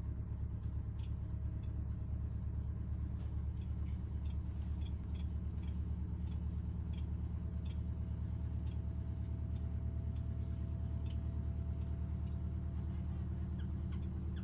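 A steady low hum runs underneath. Over it come scattered short, high ticks from society finches feeding on cabbage leaves on the cage floor.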